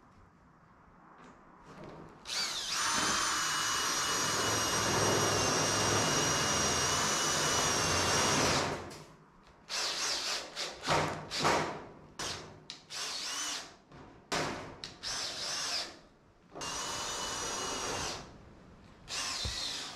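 Cordless drill driving self-tapping screws into sheet steel. A long steady run of about six seconds comes first, then a string of short bursts, then another steady run near the end.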